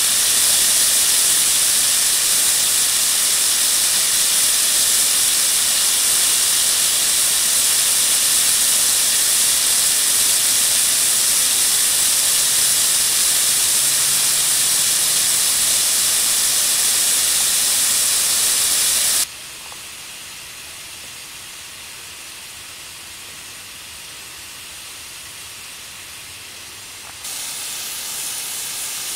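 Backyard snow gun hissing steadily as its nozzle sprays a plume of mist to make snow. About two-thirds of the way through, the hiss drops suddenly to a much fainter level, then rises again a little before the end.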